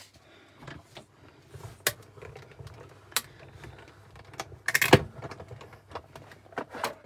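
Hand-cranked die-cutting machine winding a large die and its plates through the rollers, with irregular crackles and clicks as the die cuts the cardstock. There is a louder clatter about five seconds in.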